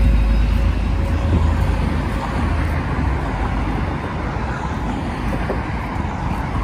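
Traffic noise: a vehicle's low engine rumble that eases off over the first few seconds, over a steady hum of road noise.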